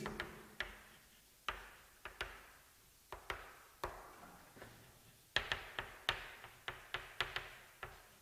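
Chalk tapping and clicking against a blackboard as words are written: a string of sharp, irregular taps that come quicker from about five seconds in.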